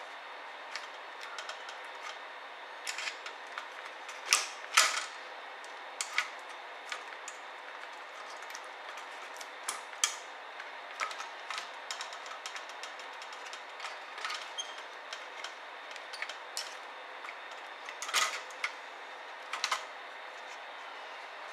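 Irregular clicks, taps and knocks of laptop parts and tools being handled while a ThinkPad T60p is taken apart, with a few louder knocks about four to five seconds in and again near the end.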